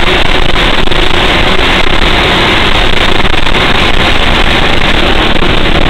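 Old fire truck's engine running steadily under way, heard loud inside the cab along with road noise.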